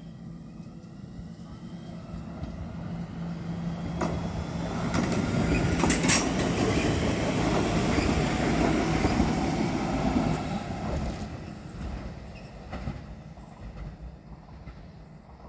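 A train passing by: its running noise builds over several seconds, is loudest in the middle, then fades away. A few sharp clicks sound as it draws close.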